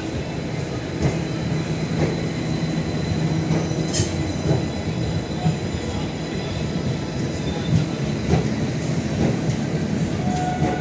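LHB passenger coaches rolling past a platform, a steady rumble of wheels on rail. Sharp wheel clicks and knocks come at irregular intervals, the strongest about four seconds in.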